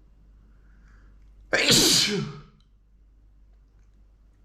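A man's single loud, induced spray sneeze about one and a half seconds in, starting suddenly with a wet hissing burst and a voiced sound falling in pitch, preceded by a faint intake of breath.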